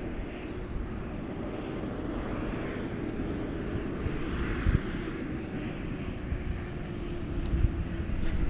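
A steady distant engine drone whose pitch sinks slowly, over low wind rumble on the microphone.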